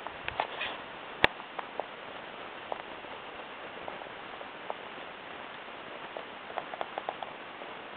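Canoe drifting on calm water: small scattered taps and ticks on the hull over a steady hiss, with one sharp click about a second in and a few quick ticks near the end.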